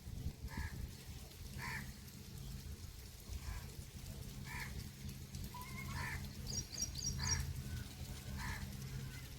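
A crow cawing repeatedly, short calls roughly once a second, over a steady low rumble. A small bird chirps briefly a few times about seven seconds in.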